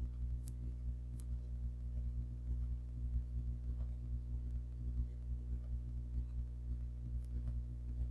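Steady low drone made of several held low tones, with a slight flutter in level.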